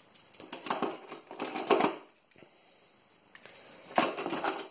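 Diecast metal toy cars clattering against one another and the plastic storage tub as a hand drops one in and rummages through the pile, in two bouts of rattling clicks, the second starting about four seconds in.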